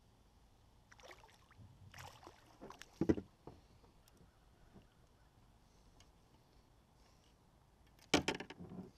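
A hooked bass splashing at the water's surface beside a kayak as it is reeled in and lifted out, with the loudest splash about three seconds in. Another short flurry of splashing and thrashing comes near the end.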